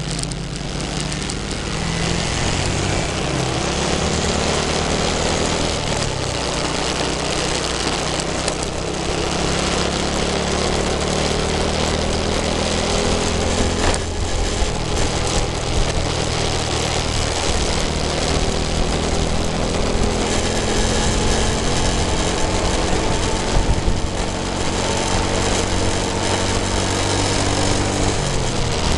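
Motorcycle engine running steadily at cruising speed, its note drifting a little up and down, over a constant rush of wind and road noise.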